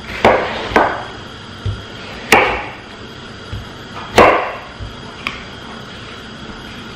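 Chef's knife slicing an English cucumber lengthwise on a wooden cutting board, the blade knocking against the board about five times at irregular intervals, loudest twice in the middle.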